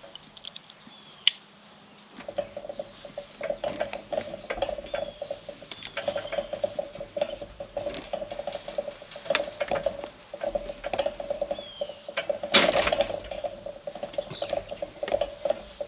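Rattling and scuffing as a ram shifts in a metal sheep chute while a marking harness is strapped onto it, with one sharp metal clank about three-quarters of the way through. Birds chirp faintly in the background.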